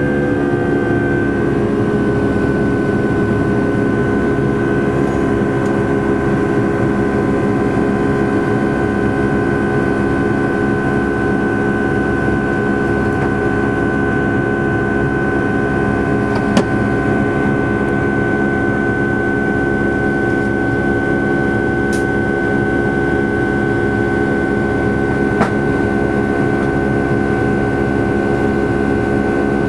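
Airliner cabin noise: jet engines running at a steady power, a constant drone with several fixed whining tones over a rumble and air rush. A few faint clicks sound over it.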